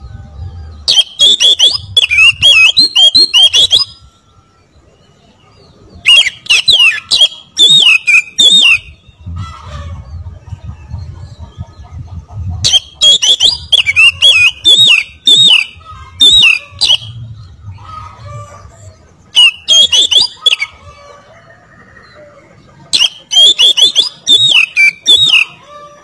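Oriental magpie-robin (kacer) singing loudly in five bursts of a few seconds each, with short pauses between them. Each burst is a rapid run of high, wavering whistles mixed with harsh clicking notes.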